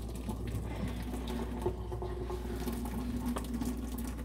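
Hot pasta water pouring from a tilted saucepan into a stainless steel sink, pattering steadily as it drains off the cooked noodles.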